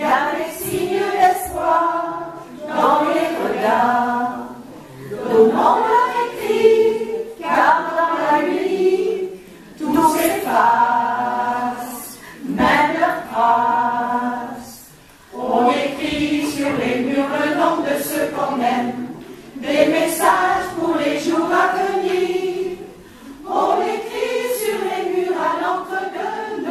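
A choir singing a song together, in several long phrases with brief pauses between them.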